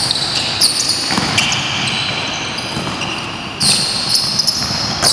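Basketball bouncing on an indoor court during play, with sneakers squeaking on the floor, several high squeaks of up to about a second each, in a large echoing sports hall.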